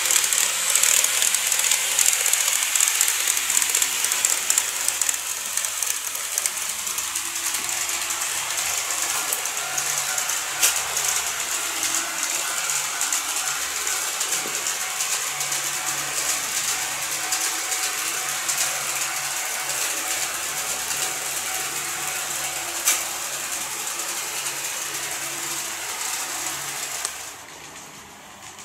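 KATO N-scale 381 series model train running along the layout track: a steady whirring of the motor and wheels, peppered with many small clicks. The sound drops off sharply near the end.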